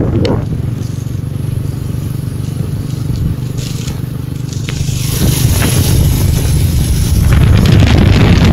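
Honda motorcycle engine running at a steady low note while riding, with wind buffeting the microphone that grows louder about five seconds in.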